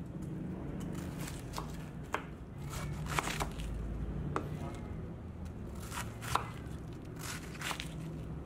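Kitchen knife cutting cabbage into wedges on a wooden chopping board: a dozen or so irregular crisp cuts, the blade knocking on the board, the sharpest about three seconds in and again a little past six seconds.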